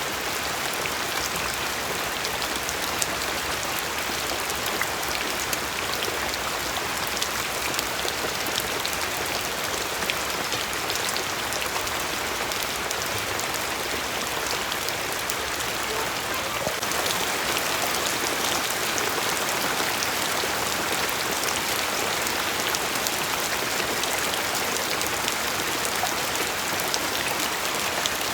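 Steady rain falling, many drops pattering on a surface with small ticks of individual drops.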